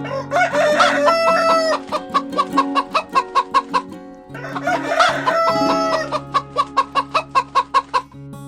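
Chicken calling twice: each time a drawn-out call followed by a quick run of clucks, about six a second, over background guitar music.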